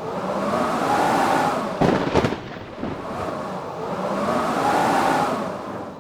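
Howling blizzard wind, gusts swelling and fading with a rising-then-falling moan, twice. A few sharp cracks about two seconds in.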